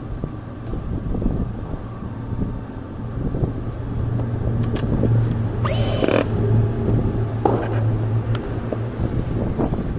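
Hands working a tool inside a cabinet: scattered knocks and scrapes over a steady low motor hum that stops about eight seconds in, with a short high squeal about six seconds in.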